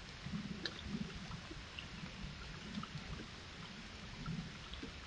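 Faint trail-camera recording of a white-tailed deer browsing on leafy plants: soft, irregular low thumps and light clicks over a steady hiss.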